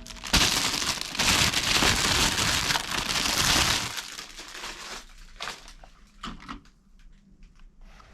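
Dense crinkling and crackling for about four seconds, then thinning out to scattered clicks and taps.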